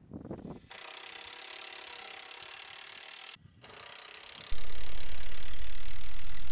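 Cordless drill driving 3-inch screws through a fence panel into a wooden post: one run of about two and a half seconds, a short stop, then a brief second run. About four and a half seconds in, a much louder steady low rumble starts suddenly and dominates.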